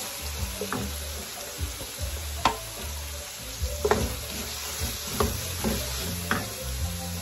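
Onion, pork and raw shrimp sizzling in hot oil in a large aluminium pan while a wooden spatula stirs them, with several sharp knocks of the spatula against the pan.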